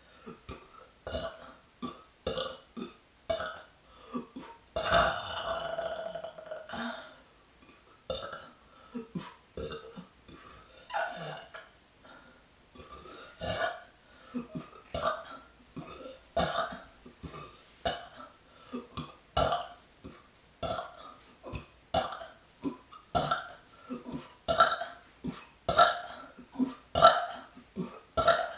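A woman burping on purpose, over and over: many short belches about a second apart, with a couple of longer drawn-out ones, the loudest coming near the end.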